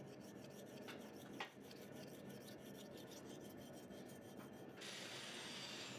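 Faint scraping of a Damascus steel knife blade being stroked across an oiled whetstone, refining the primary bevel and taking off the burr left by the grinder.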